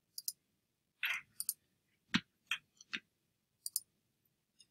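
Scattered clicks of a computer mouse and keyboard shortcut keys, about nine short, sharp clicks spread out, with one softer brief noise about a second in.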